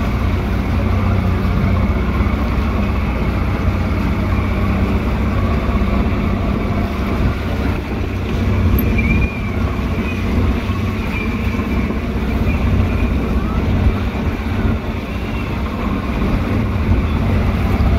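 225-horsepower Johnson outboard running steadily with the boat under way at speed, water rushing past the hull and wake churning behind.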